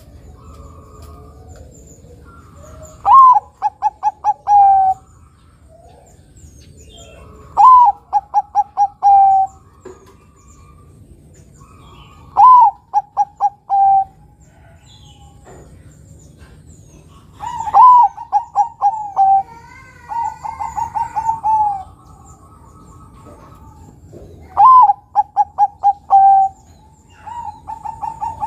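Bangkok-type zebra dove (perkutut) cooing its song: five loud phrases about five seconds apart, each a sliding opening note, a quick run of four or five short staccato notes and a longer closing note. Two softer phrases come between the loud ones, about twenty and twenty-seven seconds in.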